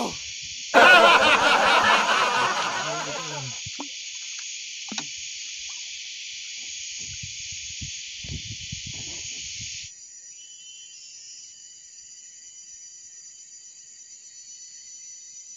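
Steady high drone of jungle insects. About a second in, a man's loud, drawn-out, wavering exclamation lasts a few seconds. Near the end the insect drone is quieter, with thin steady high whines.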